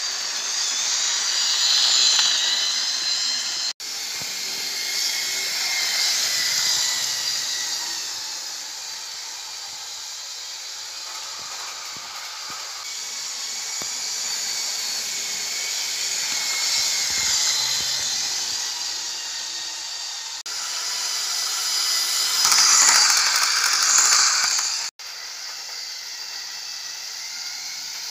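Model Class 37 locomotives running on model railway track: a high electric-motor whine and hiss of the wheels on the rails, swelling and fading as the trains pass close. It cuts off abruptly twice.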